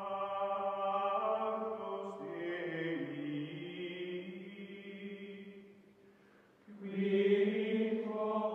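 Outro music of sustained chanting voices holding long notes that shift pitch every second or two; it drops away briefly about six seconds in and comes back louder.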